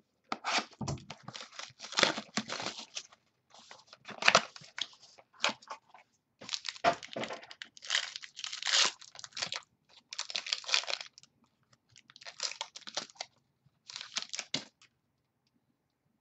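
Plastic wrapping and card packaging of a trading-card box torn open and crinkled by hand, in a string of irregular rustling bursts with short gaps, stopping shortly before the end.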